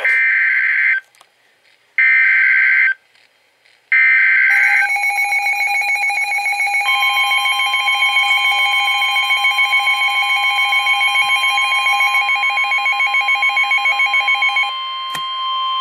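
Emergency Alert System SAME header: three one-second bursts of warbling digital data tones about a second apart, followed by the long, steady NOAA Weather Radio warning alarm tone. A second electronic tone pulsing several times a second overlaps most of the alarm tone and stops shortly before it.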